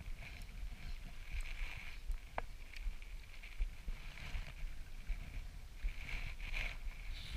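Shimano Stradic spinning reel being cranked to retrieve a lure, a soft steady whir that swells and fades, with wind rumbling on the microphone and a single click about two and a half seconds in.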